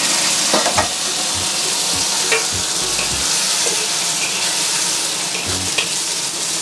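Wok sizzling as spring onions, ginger and garlic fry in oil with rock sugar and a splash of water, the stage where the rock sugar is being melted. A metal wok spatula stirs the food, scraping and clicking against the wok now and then over the steady sizzle.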